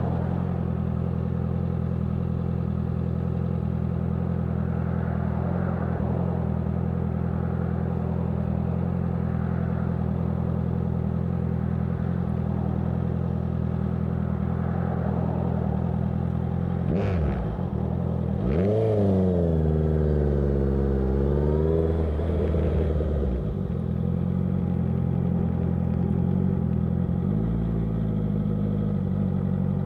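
Honda CBR650F inline-four with a CS Racing aftermarket exhaust idling steadily. About halfway through it is revved up with two sharp clicks and held higher for about four seconds, its pitch sagging and rising, then drops back to idle.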